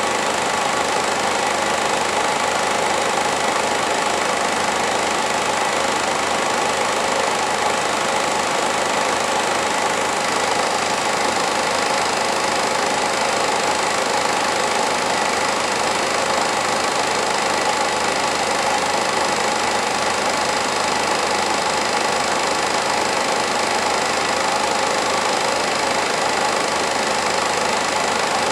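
Film projector running steadily: an even, unchanging mechanical whirr from its motor and film-advance mechanism.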